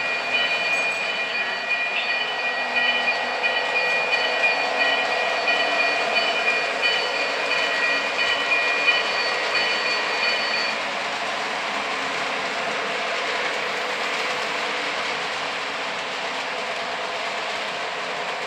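O gauge model trains rolling on the track with a steady rumble of wheels on the rails. A steady high whine from a locomotive sounds over it and stops about ten seconds in.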